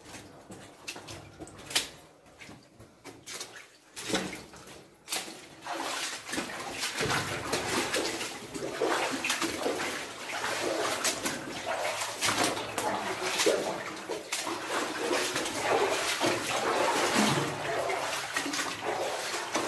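Water sloshing and splashing in a flooded mine passage, as of people wading through it, starting a few seconds in and going on steadily, with scattered knocks and scrapes before it.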